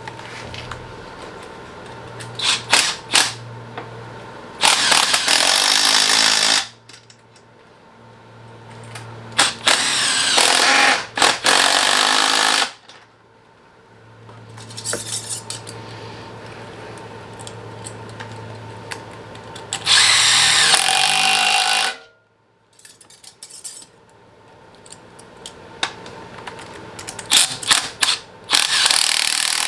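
A power tool, likely an electric ratchet, spinning in four short runs of about two seconds each while fasteners are run in during the intercooler install. Sharp clicks and clinks of tools and metal parts come between the runs.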